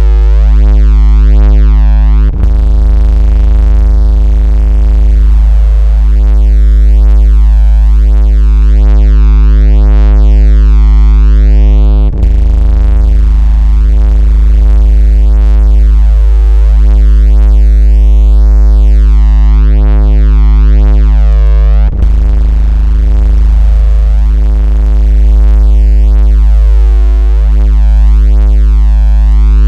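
Loud, steady synthesized 56 Hz bass tone with a stack of overtones, a phone-vibration and speaker water-ejection / bass-test tone. A short click with a brief dip in level comes about every ten seconds, three times, where the loop restarts.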